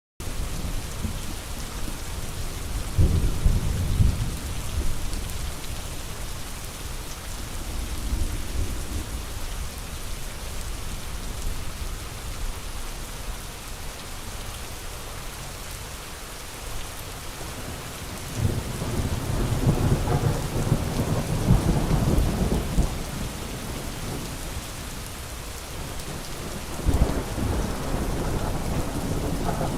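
Steady rain falling, with long low rumbles of thunder rolling in a few seconds in, a longer roll past the middle, and another near the end.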